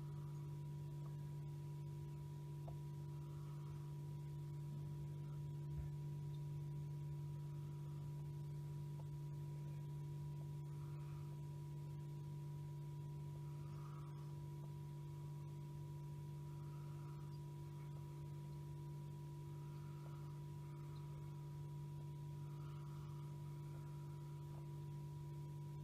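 A steady low electrical hum with a thin higher tone, and faint soft sounds every two to three seconds.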